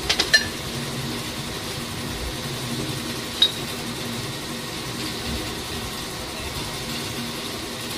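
Steady mechanical hum of running workshop machinery, with steel excavator track-link parts clinking against the press: a quick cluster of clinks at the start and a single ringing clink about three and a half seconds in.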